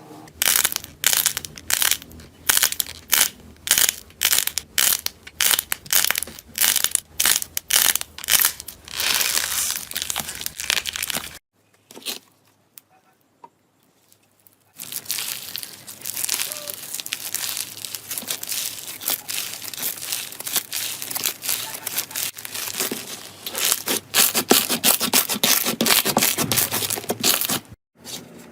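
Slime being pressed and squeezed by hand, making crisp crackling and popping sounds. First comes a run of separate crackles about two a second, then after a short lull a denser, continuous crackling.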